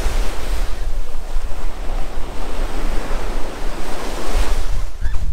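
Sea surf washing onto a sandy beach, with wind buffeting the microphone as a low rumble underneath.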